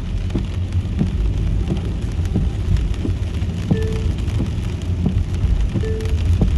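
Rain on a moving car: raindrops tick sharply and irregularly over the steady low rumble of the car driving on a wet road. A short faint tone repeats roughly every two seconds near the end.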